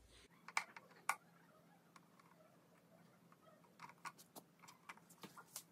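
Faint clicks and light taps of a plastic LED projector being handled: a few scattered around the first second, then a quick cluster near the end.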